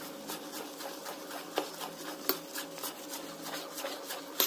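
Thick idli batter of ground rice, urad dal and poha being stirred in a steel bowl: a continual wet rubbing and scraping, with a few sharp clicks against the bowl, the loudest near the end. A steady low hum runs underneath.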